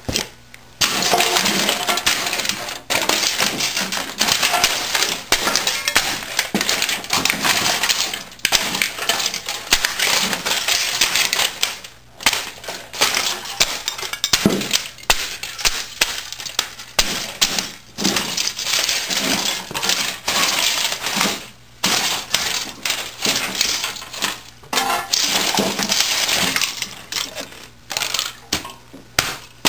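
Plastic casing and metal parts of an old 1980s word processor crunching, cracking and rattling as they are crushed and ground under a boot, in long stretches of continuous crunching broken by short pauses.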